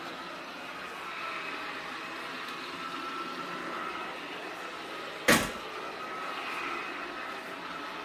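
Airmade Glide S cordless wet-mop cleaner running quietly as it is pushed over the floor, its motor and dual rotating brush rollers giving a steady low hum with a faint whine. A single sharp knock about five seconds in.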